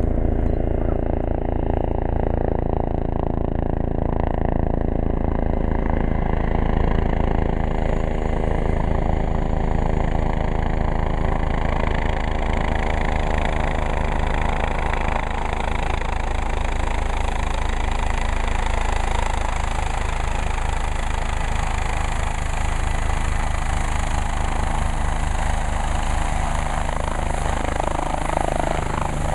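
Rescue helicopter running close by: a steady, fast beat of the rotor blades under the engine's drone, with a higher rushing whine building up over the half-minute.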